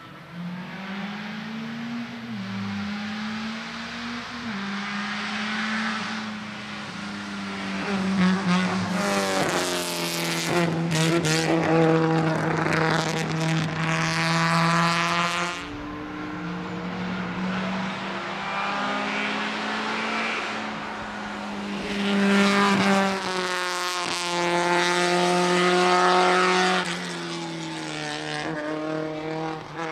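Škoda Felicia autoslalom car's engine working hard around the course, its pitch climbing and dropping in steps with the gear changes and throttle. It grows louder twice as the car comes closer.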